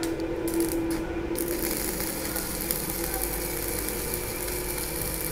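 Stick-welding arc (SMAW) burning a 2.5 mm electrode at about 170 amps from a small inverter welder. A few short sputters come first, then a steady crackle from about a second in: at this setting the rod is melting properly, where lower settings would not melt it.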